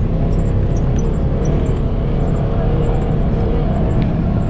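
Off-road side-by-side (UTV) engine running steadily on the move over a dirt track, a dense low rumble.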